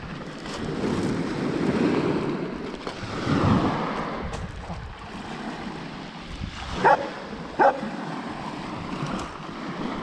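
Small waves washing onto a pebble beach, with two short dog barks about seven seconds in.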